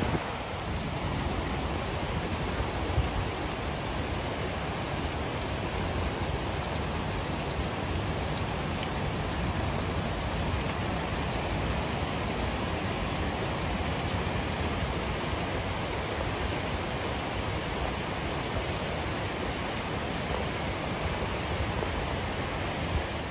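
Steady rush of running water, with a couple of light splashes from Japanese macaques swimming in the hot-spring pool in the first few seconds.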